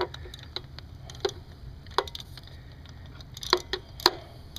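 Scattered light metallic clicks and knocks as a spark plug socket is handled and set down onto a spark plug in its well, about six in all, three of them close together near the end, over a low steady hum.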